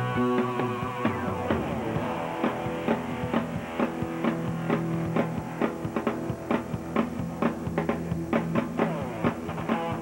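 Instrumental rock music: guitar over a steady drum beat.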